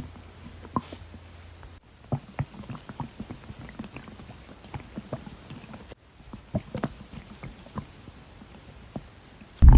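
Stomach gurgling heard up close: many small, irregular pops and bubbling clicks from an upset stomach after a whole soda has been drunk. Near the end a loud low thumping cuts in.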